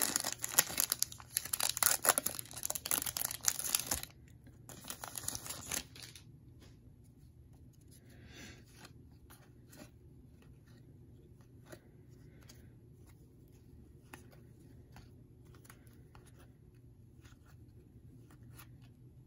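Foil wrapper of a Topps baseball card hobby pack being torn open and crinkling for about four seconds, with another shorter crinkle up to about six seconds in. Then soft ticks and rustles of the paper cards being flipped through by hand.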